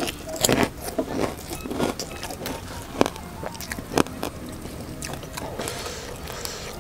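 Eating sounds: irregular clicks, knocks and rustles of food being handled and chewed, with two sharper knocks about three and four seconds in.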